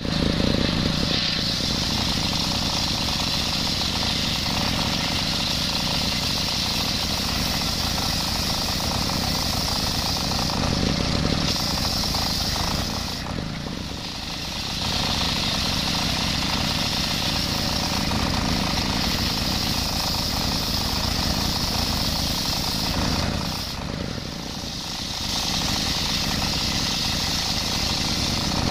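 Large circular saw blade on an engine-driven saw bench ripping coconut-palm wood, a screaming high cut over the steady drone of the drive. The noise eases twice for a second or two as the cut lets up, then comes back to full.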